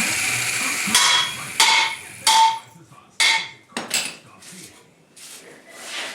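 A steady machine noise stops about a second in. Then a hammer strikes steel about five times over three seconds, the metal ringing after the blows, followed by a few lighter knocks.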